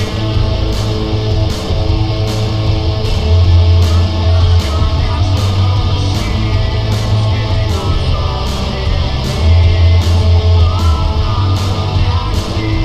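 Rock music with guitar over a heavy bass line and a steady drum beat.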